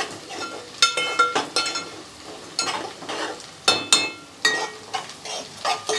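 A steel spatula stirring chopped onions frying in an aluminium pot: irregular metal-on-metal knocks and scrapes that ring briefly, over a steady sizzle of the frying.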